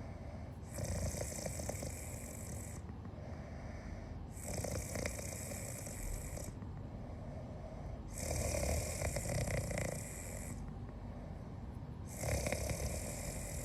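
Soft, rhythmic snoring: four drawn-out snores about every three and a half to four seconds. Faint clicks of metal tweezers can be heard within some of them.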